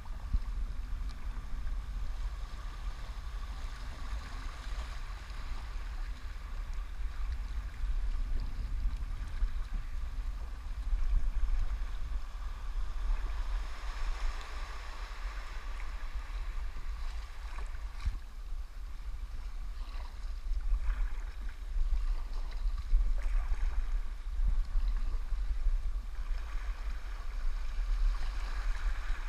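Fast river water rushing and splashing through shallow rapids around a kayak, heard from a camera on its deck, over a constant low rumble.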